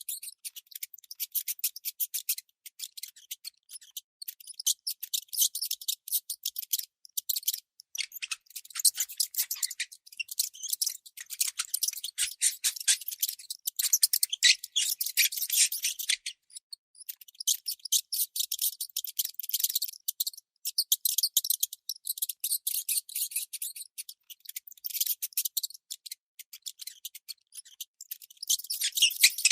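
Baby mouse squeaking: rapid runs of short, high-pitched chirps, broken by brief pauses a few times.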